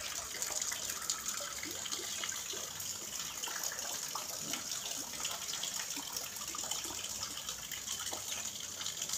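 Steady running water splashing into an ornamental fish pond.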